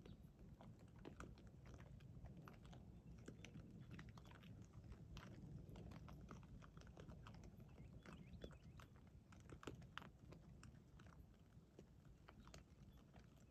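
Faint, irregular crunching clicks of young feral hogs rooting and chewing on the ground, over a low steady background hum.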